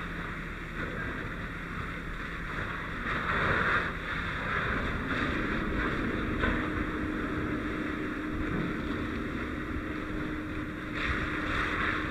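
Fire hose stream spraying steadily onto a burned-out truck cab, water rushing and spattering on metal, with wind rumble on the microphone. A faint steady hum comes in about five seconds in.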